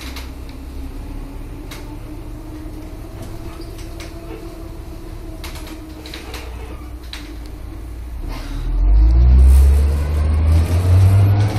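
Van Hool AG280 articulated bus heard from inside its trailer section: the engine runs steadily, with scattered rattles and knocks from the body. About eight seconds in, the bus accelerates, getting much louder with the engine pitch rising.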